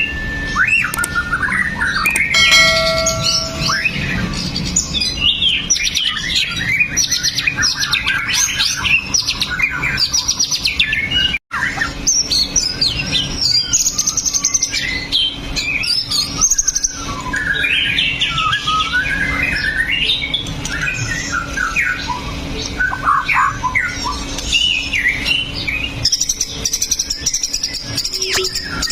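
White-rumped shama (murai batu) singing a long, fast, varied song of whistles and chattering phrases, with a split-second dropout a little before the middle.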